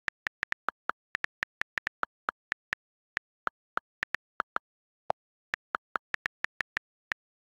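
iPad on-screen keyboard key clicks as text is typed: a quick, uneven run of sharp clicks, several a second with a few short pauses, and one lower-pitched click about five seconds in.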